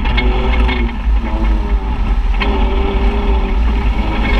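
Engine of a side-by-side UTV running steadily under way through grass, heard from on board, with a heavy low rumble and a note that wavers slightly.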